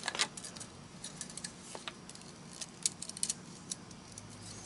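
Light, irregular metallic clicks and jingles of a thin oil ring expander being worked by hand into the oil ring groove of an engine piston.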